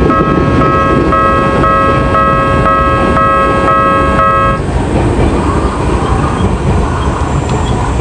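Japanese level-crossing warning bell ringing in fast repeated electronic dings, about three a second, over a steady low rumble. The bell stops about four and a half seconds in, as the crossing clears.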